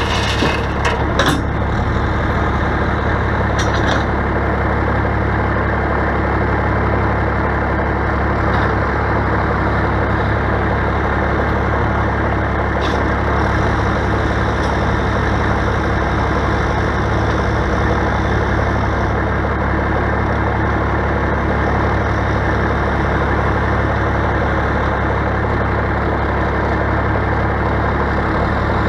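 Straight-piped Cat 3406 diesel in an International dump truck idling steadily, with the backhoe's engine running alongside. A few clatters of dirt and gravel land in the steel dump bed in the first second or so.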